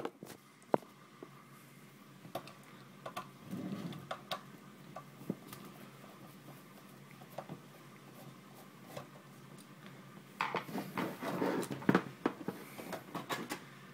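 A phone is set down with a sharp clack, then scattered small clicks and scrapes as a screwdriver backs out a screw from the top of a small PC case. About ten seconds in, a couple of seconds of louder scraping and rattling as the case cover is slid off.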